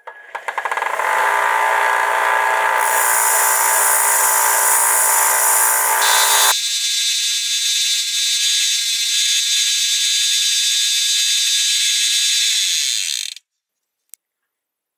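A 1-inch belt and 5-inch disc combination sander runs up to speed while the steel shank of a spade bit is held against the belt to grind off burrs. About six and a half seconds in the sound changes abruptly and loses its lower part, and it cuts off suddenly near the end.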